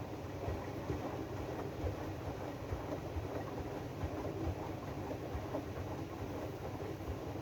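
AEG DualSense washing machine running its drum-clean programme: a steady rumble from the turning drum, with irregular low knocks.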